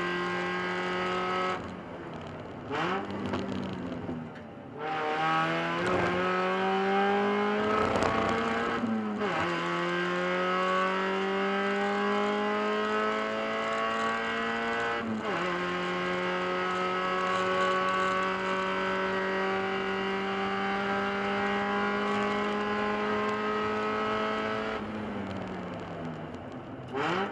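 Onboard sound of a Spec Miata's four-cylinder engine under full throttle, rising in pitch through the gears with sharp drops at upshifts about 9 and 15 seconds in. Near the end the engine comes off the throttle and its pitch falls under braking, then a quick rising throttle blip is heard as the driver heel-and-toe downshifts.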